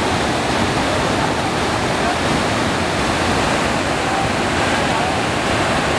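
A high mountain waterfall and the fast river below it rushing over rocks, a loud, steady, unbroken noise of falling and running water.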